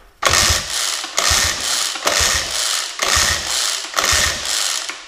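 Recoil pull-starter of a 6 hp Evinrude two-cylinder two-stroke outboard pulled hard five times in a row, each pull about a second of rope whirring and flywheel spinning over. The engine cranks without firing because the spark plugs are out and a compression gauge is fitted for a compression test.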